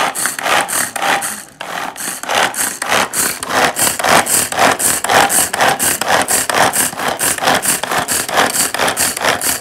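Pull-cord manual food chopper whirring as its cord is yanked over and over, spinning the blades through cabbage in a quick rasping rhythm of about three strokes a second.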